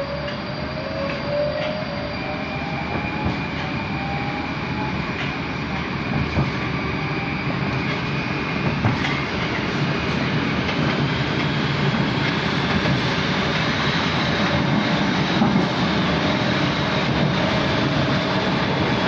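Moscow Metro 81-765 'Moskva' train accelerating, heard from inside the car: wheels rumbling on the rails under a traction-motor whine that rises in pitch as the train gathers speed.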